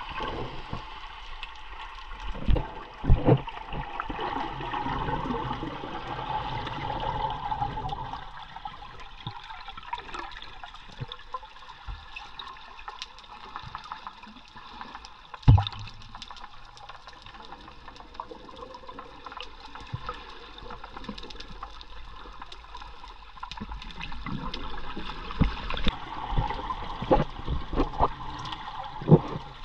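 Water heard through a camera held underwater: a steady muffled rush and slosh, broken by a few dull knocks, the loudest about fifteen seconds in and several near the end.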